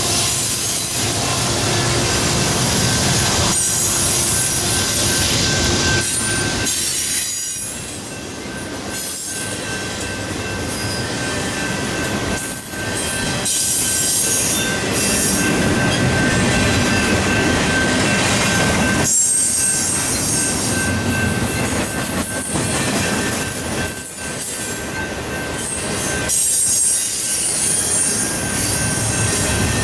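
Double-stack intermodal freight cars rolling past: a steady rumble and hiss of steel wheels on rail with some clacking over the joints, and a thin steady wheel squeal on top. The sound dips briefly twice.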